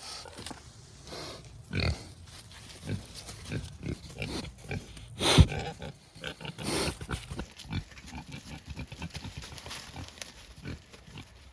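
Pigs grunting in short, irregular calls, the loudest about five and a half seconds in.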